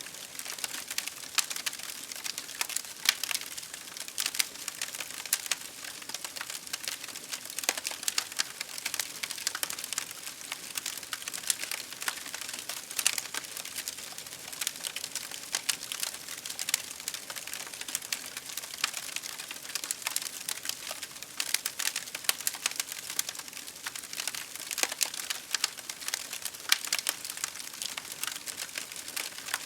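Campfire crackling: many irregular snaps and pops over a steady hiss.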